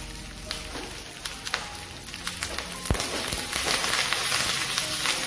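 Curry leaves frying in hot ghee with mustard seeds, dried red chillies and shallots for a tempering: a sizzle with scattered crackling pops that grows louder from about halfway through.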